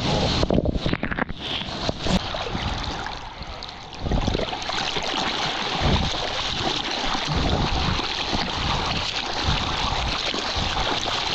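Sea water churning and splashing right at a GoPro camera as a surfer goes through whitewash, then steady wash and splashing as he paddles through calm water, with irregular low thumps of water against the camera.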